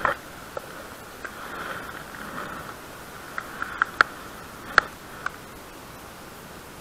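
Irregular sharp clicks and taps from hands working a fishing reel, the loudest about four seconds in and again just before five seconds, over a steady faint hiss.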